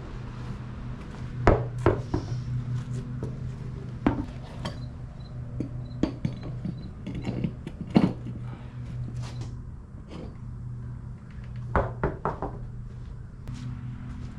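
Scattered metal clinks and knocks of hand tools at work on an ATV wheel and tyre, the loudest about a second and a half in and again about eight seconds in, over a steady low hum.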